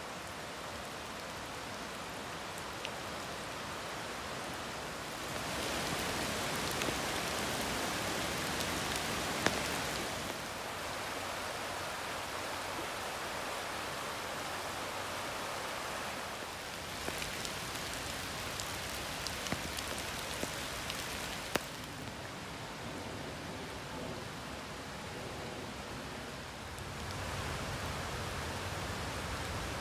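A forest creek running: a steady rush of water that shifts in level and brightness every five seconds or so, with a few light ticks of drops.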